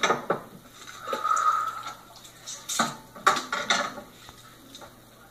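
Kitchen clatter: a glass, cups and utensils being handled and set down on a counter, with several sharp clinks and knocks, most of them at the start and again about three seconds in.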